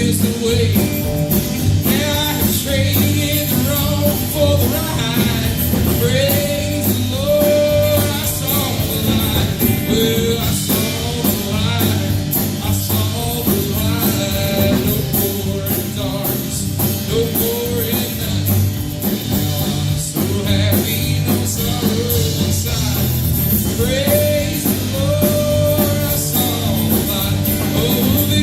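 A worship band playing a song: voices singing a melody over guitar, bass and drums.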